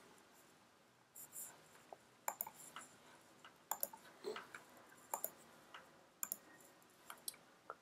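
Faint clicks of a computer mouse, about a dozen scattered short ticks, several of them in quick pairs.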